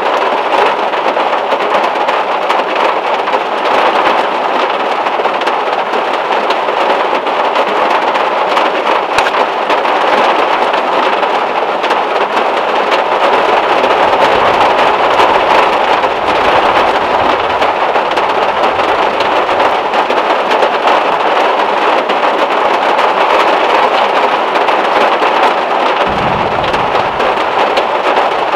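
Heavy rain drumming steadily on the metal roof of a VW Beetle, heard from inside the car. A low rumble swells and fades about halfway through, and a short low thump comes near the end.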